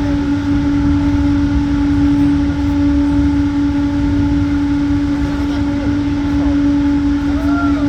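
Cable car running on its ride to the Dachstein Glacier: a loud, steady hum over a low rumble, with a few fainter steady tones above it.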